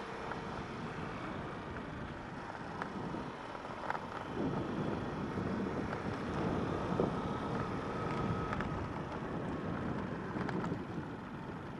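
A motor vehicle running, a steady quiet noise without a clear engine note.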